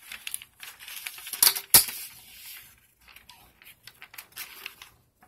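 A sheet of lined paper rustling as it is handled and pressed against a wooden board. There are two sharp taps about a second and a half in, the second the loudest, then softer rustling and small ticks.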